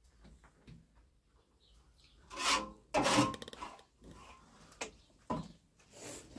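A hand tool scraping across wood in a few strokes. The two loudest come about two and a half and three seconds in, followed by a few shorter, fainter ones.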